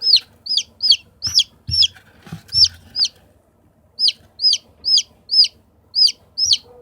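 Bantam chick peeping: a steady run of short, high-pitched peeps, two or three a second, breaking off for about a second midway. A few soft bumps sound under the peeps in the first half.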